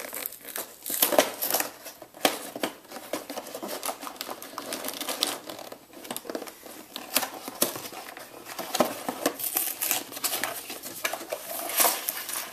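Fingers picking at and tearing open a small cardboard box's seal and flaps: irregular scratching, clicking and crinkling of cardboard, loudest about a second in and again near the end, when the box is tipped up and a plastic parts bag slides out.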